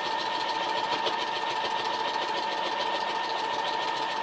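Brother electric sewing machine running steadily at constant speed, stitching through quilt layers with a walking foot: a steady motor whine with the rapid, even ticking of the needle.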